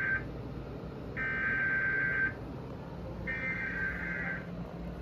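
Emergency Alert System SAME header: harsh, buzzing bursts of digital data tones, each about a second long with a second's gap, sent three times in a row. The header carries the coded alert, here a tornado warning, ahead of the attention tone.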